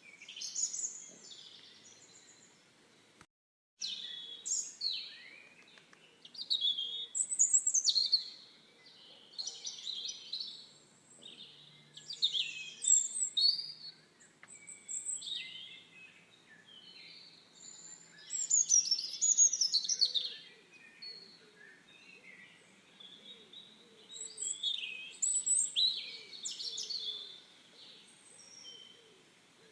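Songbirds chirping and singing in short, varied, high-pitched phrases with pauses between them. The sound drops out completely for about half a second a little over three seconds in.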